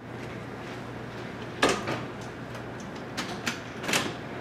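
Door with a keypad lever lock being opened: a sharp latch click about a second and a half in, then a few lighter knocks as the door swings and is walked through, over a steady low hum.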